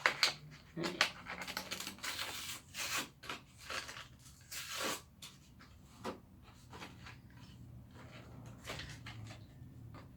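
Packaging being cut and torn open with scissors: irregular crinkling, rustling and tearing, with a few longer ripping strokes, then quieter handling after about six seconds.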